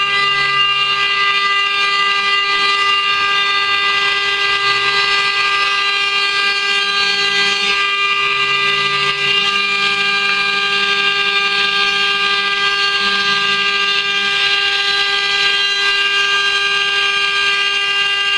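CNC router spindle running with a steady whine made of several held tones over a hiss of cutting noise, while it engraves and cuts copper.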